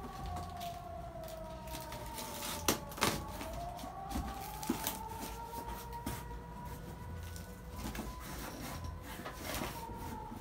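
A box cutter slitting packing tape on a cardboard box, giving scattered sharp clicks and scrapes, the loudest a pair about three seconds in. Under it a steady wailing tone slowly falls, rises again and falls near the end.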